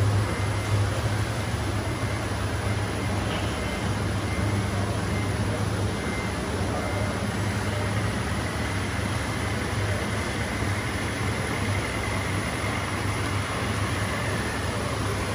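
Radio-controlled model trucks running: a steady low engine-like drone with a faint high whine over a noisy background.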